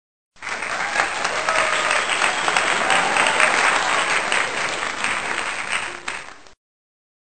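Crowd applause, a canned sound effect that starts abruptly just after the start and cuts off sharply about six seconds later.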